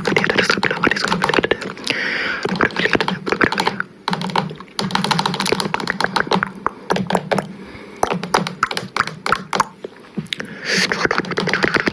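Rapid, irregular clicking and tapping close to a microphone, with short stretches of hiss about two seconds in and near the end.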